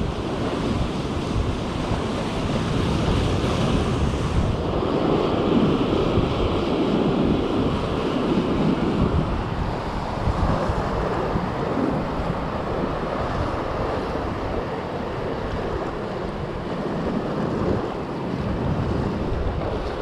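Sea surf washing and breaking, with wind buffeting the microphone; the noise swells loudest about five to ten seconds in.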